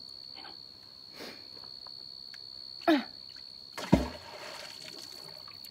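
A neodymium fishing magnet on its rope lands in the river with a single splash about four seconds in, a deep plunk followed by about a second of spray. A short grunt of effort comes just before it, as the magnet is thrown.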